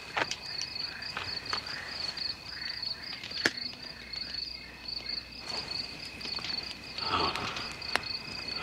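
Crickets chirping in a steady, rapid pulsing trill, with a few sharp clicks.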